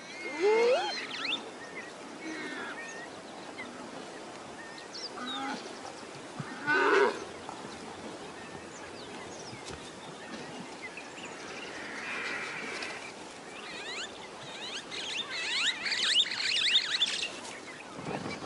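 Warthog squealing in distress as a lioness eats it alive: scattered wavering squeals and cries. The loudest comes about seven seconds in, and a cluster of high squeals follows near the end.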